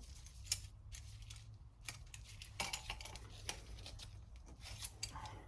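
Scattered light metallic clicks and clinks of plumbing tools and brass fittings being handled, over a faint low hum.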